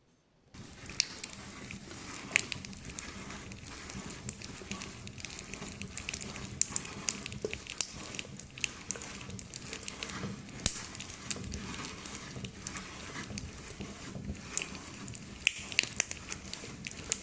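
Meat grinder crushing eyeball candy: a continuous crackling grind with scattered sharp clicks, starting about half a second in.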